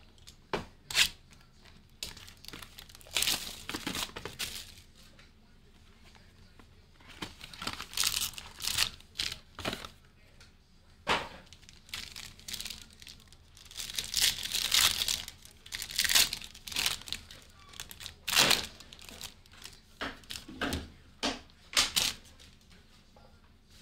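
Plastic wrapping on sealed trading-card boxes being torn and crinkled as the boxes are opened, with many short handling clicks and rustles and a longer stretch of crinkling about two-thirds of the way through.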